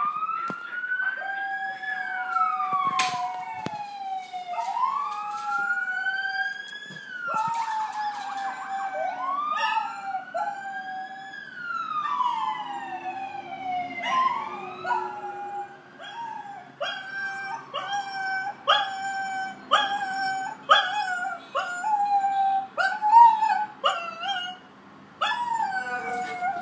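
Blue roan cocker spaniel puppy howling along with passing emergency-vehicle sirens. The sirens wail in long rising and falling sweeps, then about halfway change to a faster up-and-down cycle about once a second, while the puppy's howl holds a steadier pitch underneath, mimicking them.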